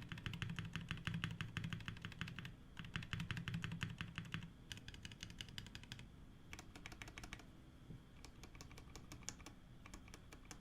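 Fast typing on a Monokei x TGR Tomo 75% mechanical keyboard with Zaku switches, in quick runs of keystrokes. The runs are louder for the first four seconds or so, then lighter and more broken up.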